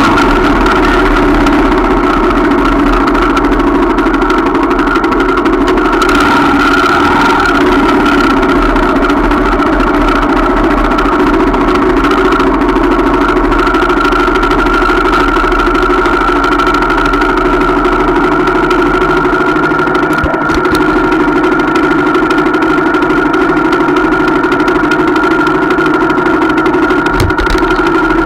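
A 125 cc trail motorcycle's engine idling steadily, heard close up from the bike's own handlebar camera.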